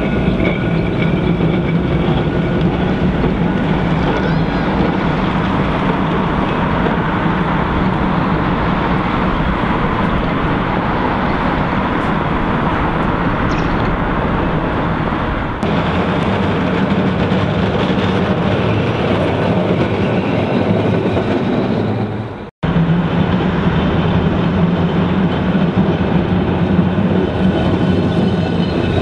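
Blackpool electric trams running along the street track: a steady rumble of wheels on rail with a low motor hum. The sound breaks off abruptly twice, about halfway and two-thirds through, briefly going silent at the second break.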